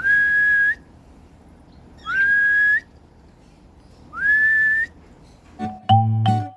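A person whistling three times, about two seconds apart, to call a pet cockatiel; each whistle slides up and is held for under a second. Guitar music starts near the end.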